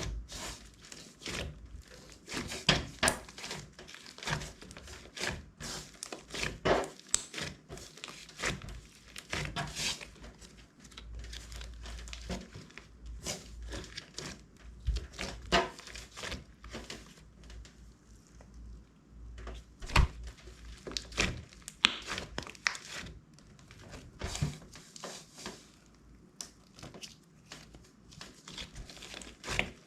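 Clear slime being stretched, pressed and folded by hand, giving a run of irregular sticky pops and clicks.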